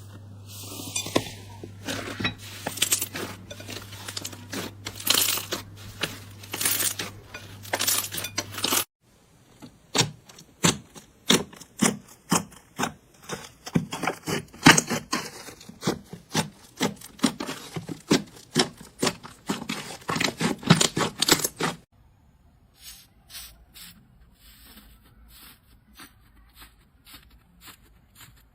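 Crunchy slime being squeezed and pressed, giving dense runs of sharp crackles and pops. The sound changes abruptly twice as new clips begin, and the last clip is much quieter with sparser clicks.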